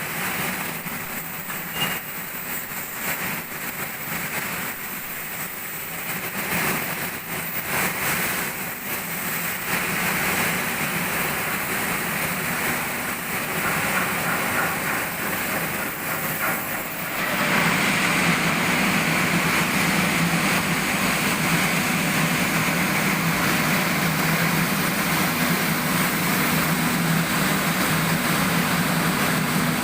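Steady machinery noise from heavy workshop equipment, running continuously with a low hum; it grows louder about halfway through.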